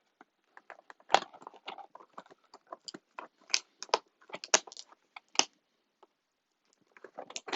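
A box being opened by hand: irregular clicks, crackles and scrapes of the lid and packaging, with a short pause near the end.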